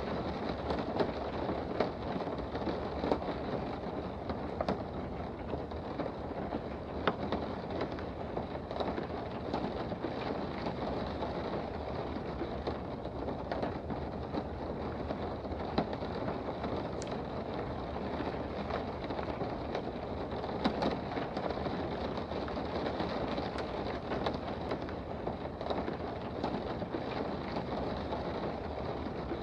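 Steady rain heard from indoors: an even wash of falling rain with scattered sharper drop ticks.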